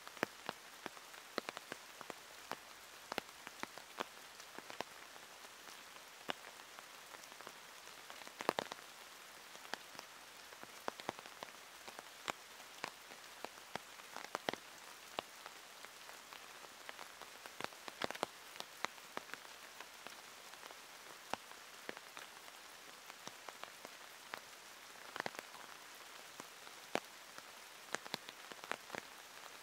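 Pouring rain falling steadily, with many separate drops tapping sharply and irregularly close to the microphone.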